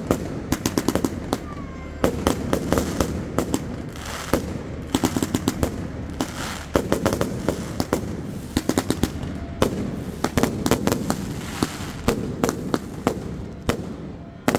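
Fireworks going off overhead: quick runs of sharp cracks and bangs come in clusters every second or two, over a steady hiss.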